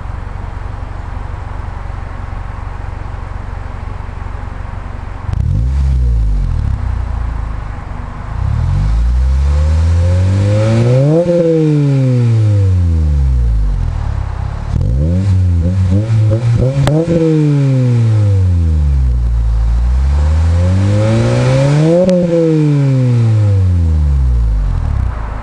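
2002 Acura RSX Type S 2.0-litre four-cylinder through an HKS cat-back exhaust: steady idle for about five seconds, then a short blip and three slow revs, each climbing in pitch and falling back to idle.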